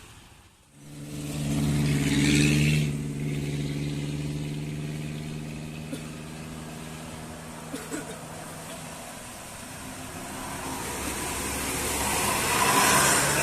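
A bus's diesel engine running steadily as it climbs past, loudest about two seconds in and fading away by about ten seconds. Another vehicle then approaches and passes near the end.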